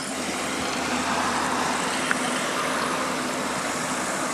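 Steady rushing noise with a low hum underneath.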